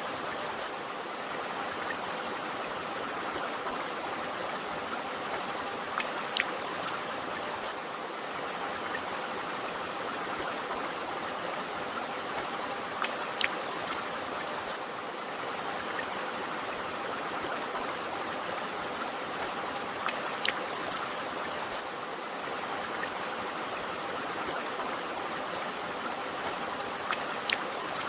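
A river or stream flowing with a steady rushing and burbling. A few sharp ticks stand out above it, about every seven seconds.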